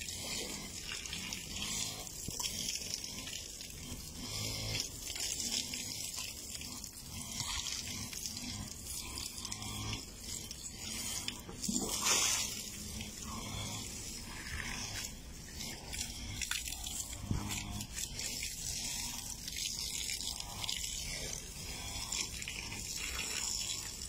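Hose water spraying and splashing onto a concrete floor and into an elephant's trunk, a steady hiss, with animal noises from the elephant as it drinks from the stream; the loudest swell comes about halfway through.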